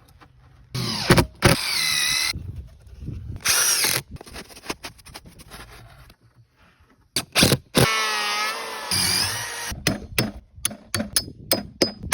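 Power tool running in several bursts while working pine boards, its pitch rising and falling as it speeds up and slows down. It ends with a run of quick sharp clicks and taps.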